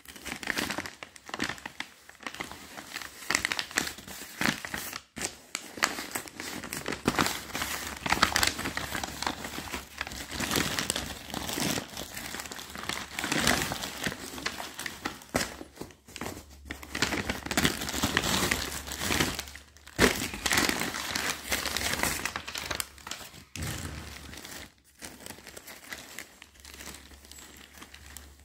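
Paper courier mailer bag crinkling and crackling as it is handled and pulled open by hand, in irregular rustles with brief pauses; near the end a plastic polybag crinkles.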